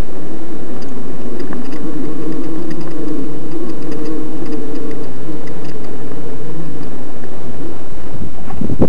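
Electric mountain bike's motor whining steadily under moderate load, over loud wind and trail rumble on the mounted camera's microphone. The whine fades near the end as heavy wind buffeting takes over.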